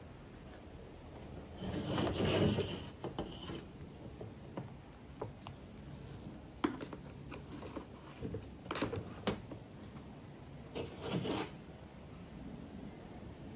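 Faint handling noises: scattered light clicks and knocks with rubbing, and a louder scraping rustle about two seconds in.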